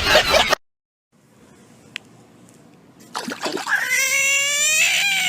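A cat's long, drawn-out meow, starting about four seconds in and held for over a second, with a faint click before it.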